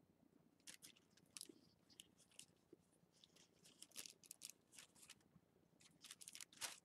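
Faint rustling and light, irregular clicks of tissue paper and plastic drinking straws being handled as string is threaded through a corner of a tetrahedron kite.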